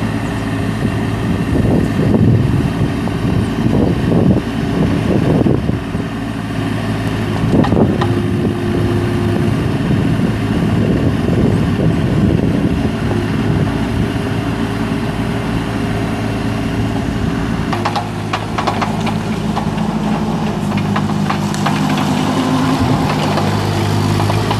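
Kubota 1.7-litre three-cylinder diesel engine of a Bobcat 329 compact excavator, running steadily. Its note changes about eighteen seconds in, with a few sharp knocks around the change.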